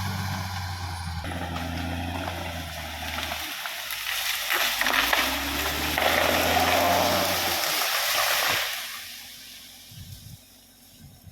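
Caterpillar D6R XL bulldozer's diesel engine running steadily. From about four seconds in, a loud rushing noise lies over the engine for four or five seconds. It then dies away, leaving the sound much quieter near the end.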